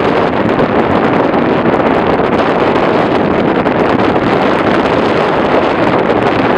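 Steady wind buffeting the microphone: a loud, even rushing noise with no other sound standing out.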